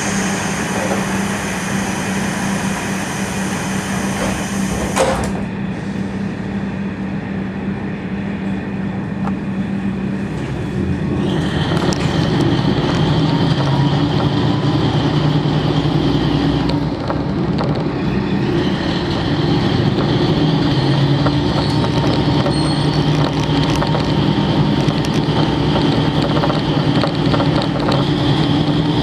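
KiHa 40 series diesel railcar's DMF15HSA engine idling, a steady hum heard from inside the car. A high hiss in the first few seconds ends with a clunk. About ten seconds later the engine note grows louder and fuller.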